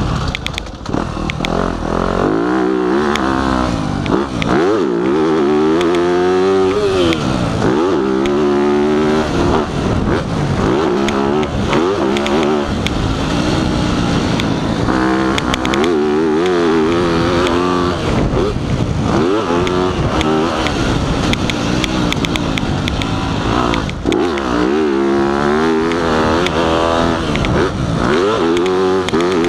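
Dirt bike engine under riding load, its pitch repeatedly climbing as the throttle is opened and dropping back when the rider shuts off for corners and jumps. Wind rushes steadily over the microphone.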